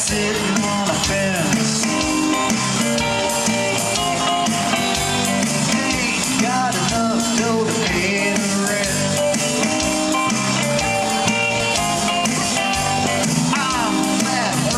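A rock band playing live: electric guitars, electric bass and a drum kit playing together at a steady beat.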